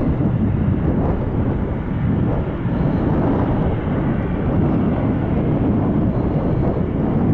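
Steady low rumble of airliner jet engines at taxi power, heard from across the airfield, with no sharp events.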